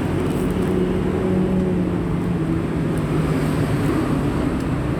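Street traffic noise: a steady rumble of passing vehicles with an engine hum close by that sinks slightly in pitch.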